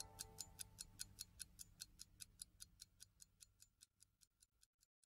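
Faint, fast, even ticking, about five ticks a second, from the music track, fading away to nothing over about four seconds.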